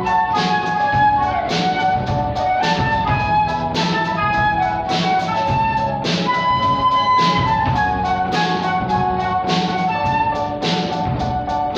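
Live concert flute playing a pop melody over a drum kit keeping a steady beat, with piano accompaniment.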